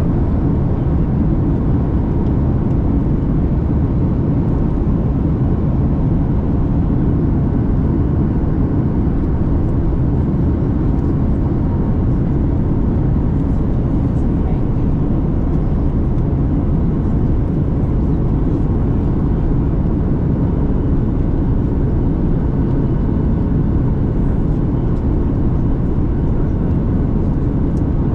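Steady cabin noise of a Boeing 737 MAX 8200 in flight on approach: a constant low rumble of the CFM LEAP-1B engines and airflow, heard from a window seat inside the cabin.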